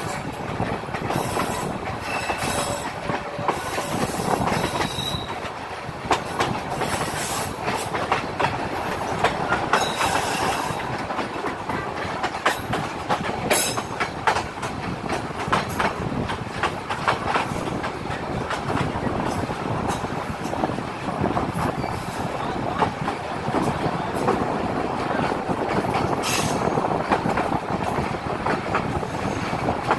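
Rangpur Express passenger train running at speed round a curve, heard from an open carriage window. There is a steady rumble of wheels on rail with frequent clicks over the rail joints, and brief high-pitched bursts in the first few seconds and around ten seconds in.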